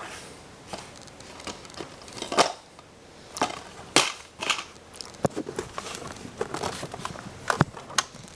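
A DVD case being opened and handled: plastic wrap crinkling, with irregular sharp clicks and snaps. The loudest snaps come about two and a half and four seconds in.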